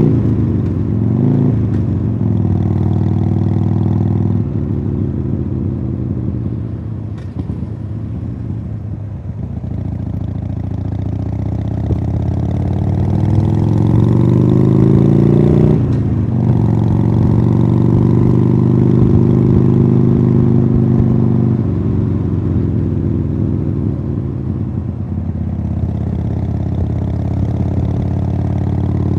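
2015 Harley-Davidson Sportster Iron 883's air-cooled V-twin running through Khrome Werks Tapered 3 slip-on exhausts while riding. The engine note climbs steadily under throttle, drops sharply about sixteen seconds in, then runs on at a steady pitch.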